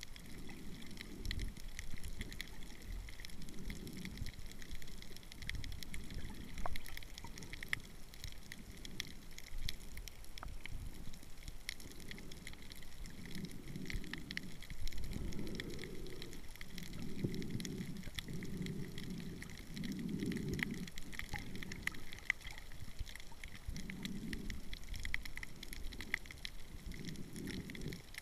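Muffled underwater sound through a waterproof camera housing: irregular low swishes of water, each about a second long, over a steady faint crackle.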